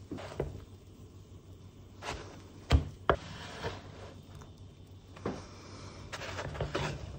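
A spatula scraping and knocking against a frying pan as pancakes are worked loose and flipped: a series of short clicks and knocks, the sharpest one a little under three seconds in.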